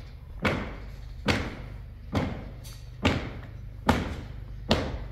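Six evenly spaced deep thuds, a little more than one a second, each dying away briefly, over a steady low hum.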